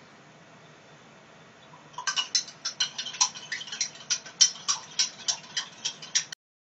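Metal spoon stirring sugar into liquid in a small glass measuring cup, clinking against the glass about five times a second. The clinks start about two seconds in and cut off abruptly near the end.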